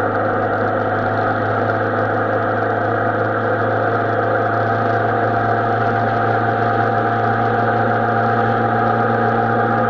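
Suzuki Bandit 650N motorcycle's inline-four engine running at a steady, even pitch.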